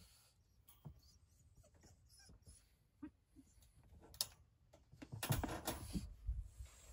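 French bulldog puppy whimpering faintly in its crate. About five seconds in, a louder stretch of cloth rustling comes from a towel being pulled over the wire crate.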